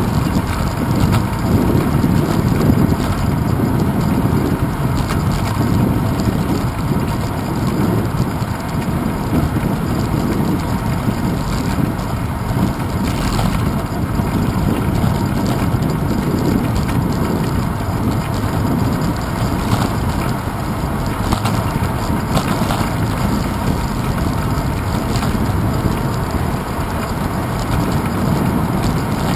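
Wind buffeting the microphone of a handlebar-mounted GoPro Hero 2 on a moving bicycle, mixed with a steady low rumble from the tyres rolling over paving stones.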